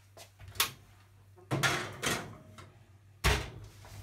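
Oven door being opened and shut as the loaf goes in: a click, a scraping clatter about a second and a half in, then a heavy thud as the door closes near the end.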